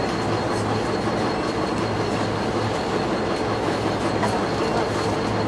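Steady low rumble of a motor vehicle's engine running, with an even hum and road-side noise and no distinct knocks.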